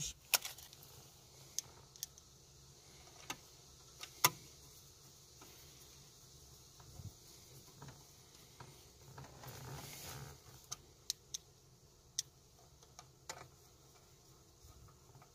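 Scattered sharp clicks and ticks of a screwdriver driving 5 mm panhead machine screws through a plastic mounting bracket into a car stereo's metal side, with soft handling noise in between.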